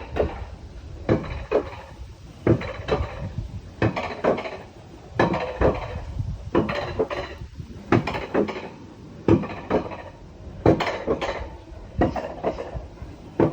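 Mountain coaster sled clattering and clanking along its metal rail. Sharp metallic knocks come at irregular intervals, about one or two a second, over a low rolling rumble.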